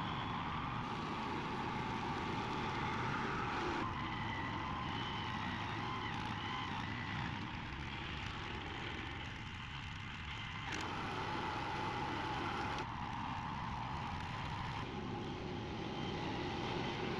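Thirty-year-old hammer knife mower running steadily as it lightly cuts small weeds, its engine noise carrying a faint held whine. The sound shifts abruptly a few times.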